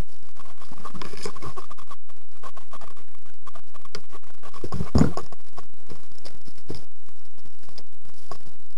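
Dense scratching and crackling handling noise from a gun-mounted camera being jostled and rubbed. There is one heavier thump about five seconds in.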